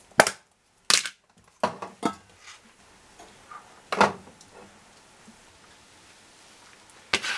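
A plastic food container being handled while a utensil scoops noodles out of a metal wok into it: a handful of separate sharp clicks and knocks, the loudest about four seconds in.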